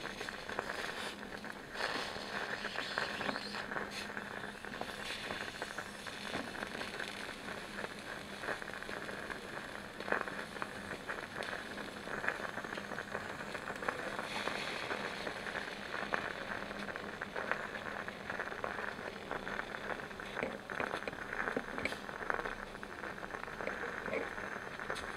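Sour-cabbage broth simmering in a miniature copper hotpot: a steady crackling and bubbling, with a few sharper light clicks from the small wooden utensils.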